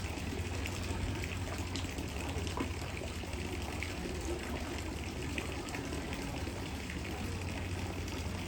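Steady running water with a constant low hum underneath.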